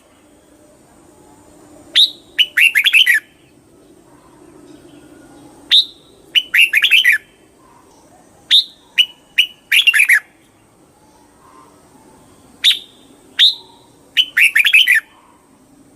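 Red-whiskered bulbul singing: a short phrase every few seconds, each a single sharp note followed by a quick run of warbling notes.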